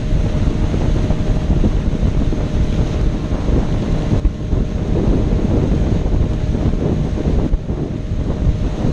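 Heavy wind buffeting the microphone on a motorboat under way, over the boat's engine and its churning wake.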